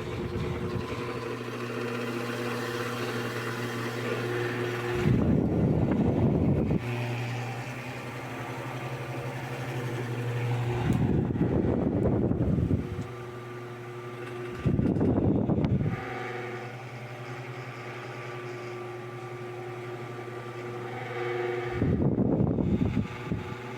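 Arno Silence Force 40 cm, 126 W electric fan running with a steady motor hum and whir. Four times its airflow buffets the microphone in a louder low rumble lasting one to two seconds.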